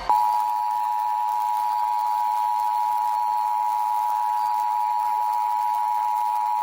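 Emergency Alert System two-tone attention signal (853 Hz and 960 Hz sounded together), a steady, unwavering tone that starts abruptly. It is the alert tone that heralds the voice message of an EAS Required Monthly Test.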